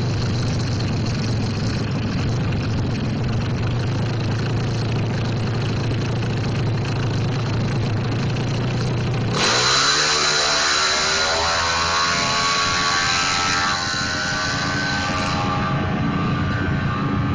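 Drag-race motorcycle with an open racing exhaust running steadily at the start line. About nine seconds in it launches with a sudden loud burst, and the engine note rises as the bike accelerates away down the strip.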